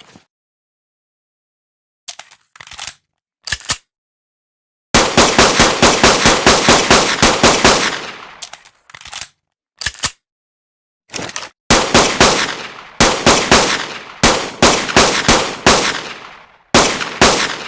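Synthetic handgun gunshot sound effect: a few faint clicks, then single shots and long rapid strings of shots, several a second, broken by gaps of total silence.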